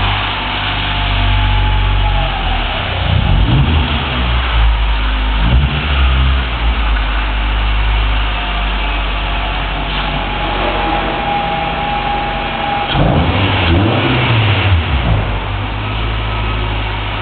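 Honda Prelude engine idling, revved up and back down a few times: about three to six seconds in, and again about thirteen seconds in.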